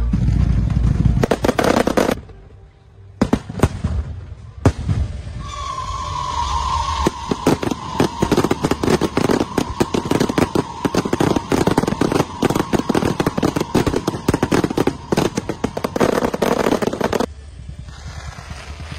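Fireworks display: dense bangs and crackling, then a lull of about a second broken by two single bangs. After that comes a long run of rapid-fire launches and pops with a steady whistling tone through it, all stopping suddenly near the end.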